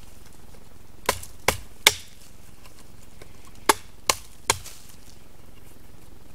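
A small Perkin axe chopping into a wooden stick: two runs of three quick, sharp strikes, the second run about two seconds after the first.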